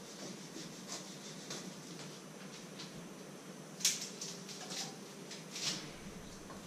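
Light clicks and scrapes of a kitchen knife working small potatoes on a wooden cutting board, with two sharper knocks, the louder about four seconds in. A faint steady hum runs underneath.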